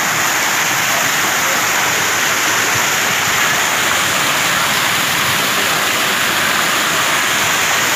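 Artificial rock waterfall pouring into a koi pond: a steady rush of falling, splashing water.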